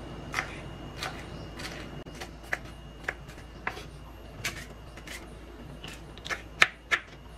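Kitchen knife chopping a green chili on a wooden chopping board: sharp knocks of the blade on the board about every half second, coming quicker and louder near the end.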